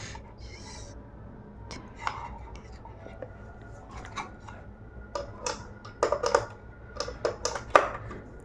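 Small hard plastic and metal parts of a smartwatch and its packaging being handled: a brief rustle at the start, then scattered clicks and taps that come thick and fast in the last few seconds.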